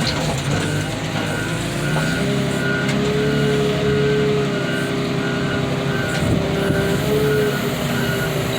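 Heavy diesel machinery running under load, its engine and hydraulic whine rising about two seconds in and holding steady before easing off near the end. A reversing alarm beeps about twice a second from about two seconds in.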